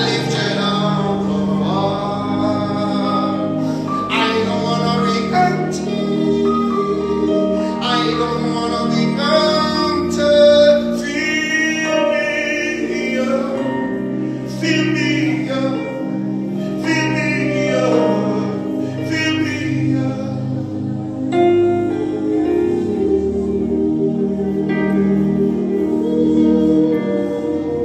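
Slow worship music: a voice singing long notes with vibrato over sustained keyboard chords.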